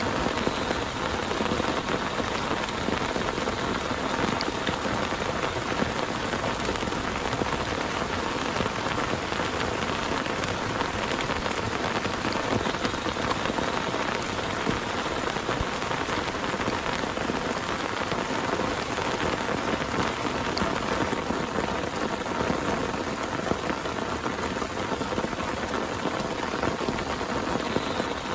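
Heavy rain pouring steadily onto a surface, a dense, even patter that does not let up.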